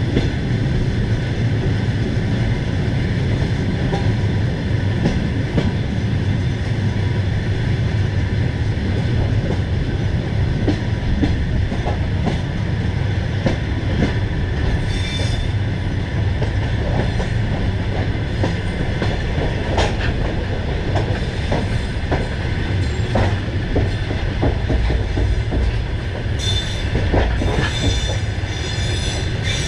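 Passenger train coaches rolling slowly into the terminus over station yard tracks: a steady low rumble with irregular clicks of the wheels over rail joints and switches. High wheel squeals come in about halfway through and again near the end.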